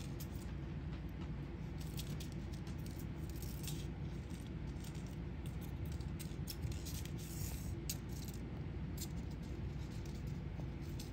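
Candy wrapper crinkling and skittering on a hard floor as a kitten bats and paws at it: faint, scattered crackles and ticks over a steady low hum.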